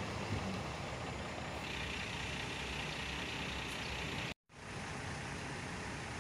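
Steady outdoor vehicle noise, an even rumble and hiss without a clear engine note, broken by a brief dropout a little past four seconds in.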